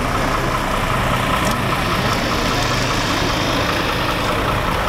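An engine idling steadily, a constant drone with a steady whine above it.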